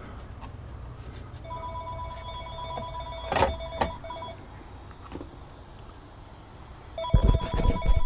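Panasonic cordless phone handset ringing for an incoming call: an electronic two-tone ring lasting about three seconds, then a second ring starting about seven seconds in. There are two knocks during the first ring and heavy bumping as the second ring begins.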